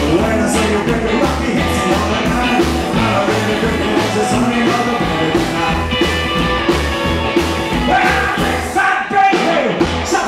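Live rockabilly band playing: a slapped upright bass keeps a steady beat under a strummed acoustic guitar and an archtop electric guitar. The bass drops out about eight seconds in.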